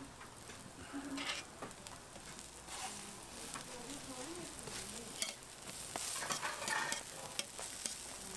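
Burger patties sizzling on a flat steel griddle, with metal tongs and a spatula scraping and clicking against the plate as the patties are turned, the sharpest click about five seconds in.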